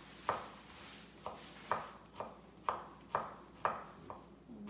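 Kitchen knife chopping through food onto a wooden cutting board, a steady run of about nine sharp chops, roughly two a second.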